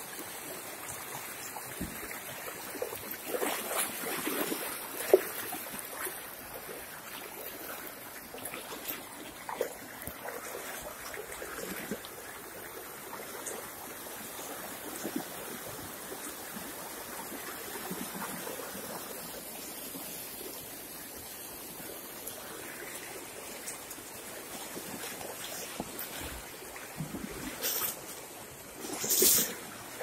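Steady rush of water, with scattered brief splashes and a louder surge near the end.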